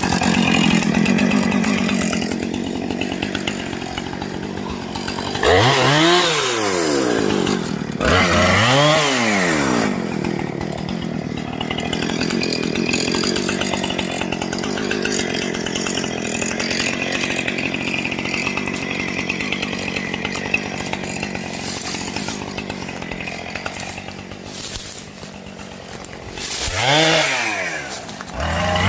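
Two-stroke chainsaw running and cutting, revved up and let back down three times: about six seconds in, about eight seconds in, and near the end, with a steady engine tone in between.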